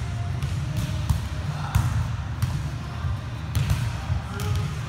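Volleyballs being struck in a passing drill: several sharp slaps of the coach's hits and the player's forearm passes, roughly a second apart, ringing in a large gym, over a steady low rumble.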